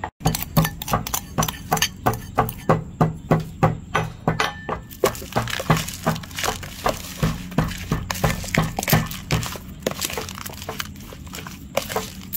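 Raw pork rib pieces being tossed and mixed by hand with seasoning in a plastic tub, making a run of wet slaps and knocks against the tub, about three a second, that thins out near the end.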